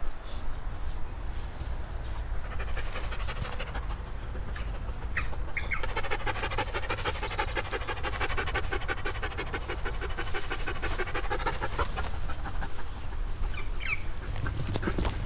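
A poodle panting quickly and steadily close by, loudest through the middle stretch, over a steady low rumble.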